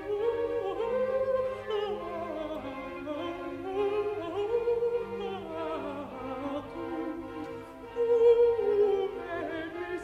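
Contralto voice singing slow, sustained lines with vibrato in a Baroque sacred aria, accompanied by a string orchestra holding low notes beneath.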